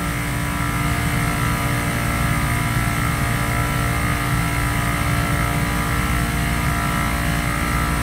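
Steady drone of running machinery: a low hum with several steady tones over it, unchanging throughout.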